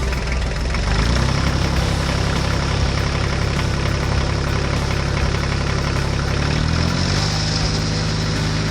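An engine running steadily, its pitch stepping up about a second in and rising again near seven seconds in.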